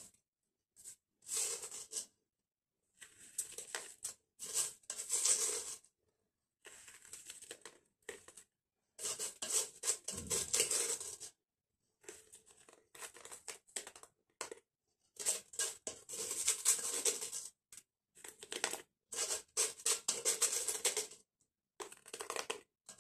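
Wet granules of activated charcoal crunching and rattling as they are spooned and packed into a plastic filter column. The sound comes in repeated scraping bouts of a second or two, with short pauses between them.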